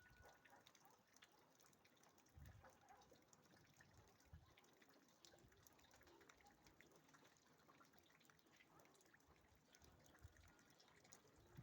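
Near silence: faint background noise, with two soft low thumps early on.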